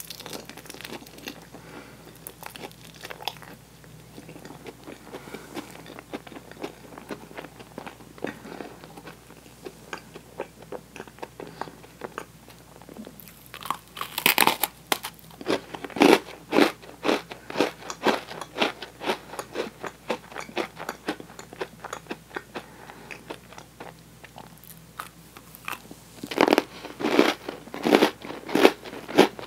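Close-miked mouth sounds of eating: soft, faint chewing of toasted marshmallow off a spoon, then a bite into a cream-filled Oreo cookie about 14 seconds in, followed by loud, crisp crunching. A second run of loud crunching comes near the end.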